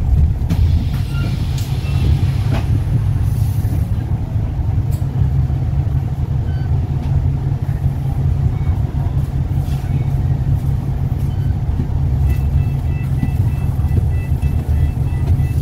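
Steady low rumble of a double-decker bus's engine idling while the bus stands still, heard from inside the upper deck. About three-quarters of the way in, a fast, evenly repeating two-tone electronic beep starts and keeps going.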